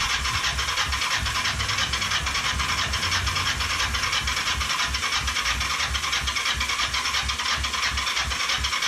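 Kawasaki Ninja 500 parallel-twin being cranked on its electric starter, a steady rhythmic churning over the starter's hiss with no firing at all. It cranks without catching, which the owner puts down to the fuel tank not feeding it any fuel.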